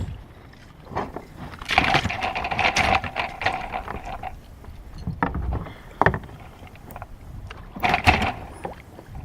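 Fishing gear being stowed aboard a kayak: a few sharp knocks and a longer stretch of scraping and rustling from about two to four seconds in, with more knocks near six and eight seconds.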